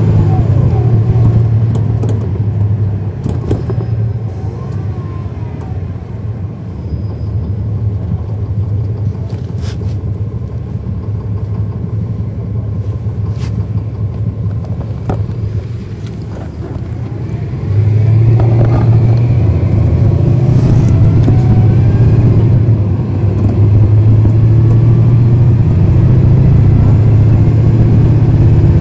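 Cummins ISL9 inline-six diesel of a 2010 NABI 416.15 transit bus, heard from inside the bus. The engine pulls loudly at first, then eases back to a quieter run for most of the first half with a few light rattles. About 18 s in the throttle opens again and the engine climbs under load, dipping briefly around 23 s before pulling hard again.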